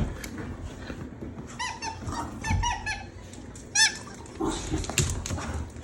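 Beagles play-fighting: a puppy gives several short, high-pitched squeals in quick succession, over scuffling and soft thumps.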